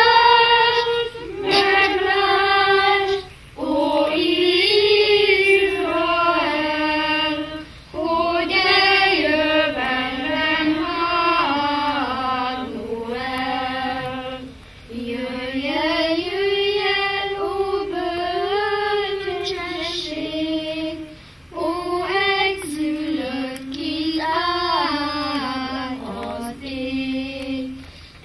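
A children's choir singing together with a woman's voice, in phrases a few seconds long with brief pauses for breath between them.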